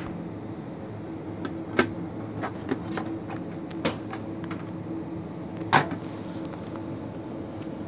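A plastic dustbin with a lid being handled on a shelf: a few light plastic clacks and knocks, the loudest about six seconds in, over a steady low hum.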